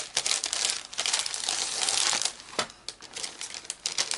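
Clear plastic packaging crinkling and rustling as it is handled and pulled open, in a quick irregular run of crackles with a short lull about two-thirds of the way through.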